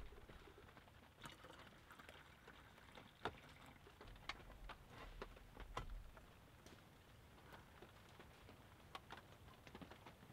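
Near silence broken by a few faint scattered clicks and light knocks: cookware and a wooden utensil handled on a plank table.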